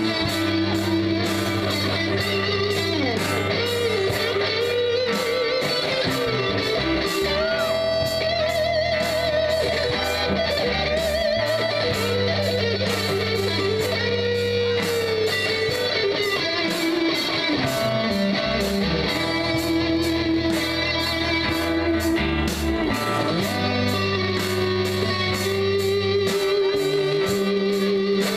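A live rock band jamming: electric guitars, bass guitar and drums playing together over a steady beat, with a sliding, wavering lead line above the chords.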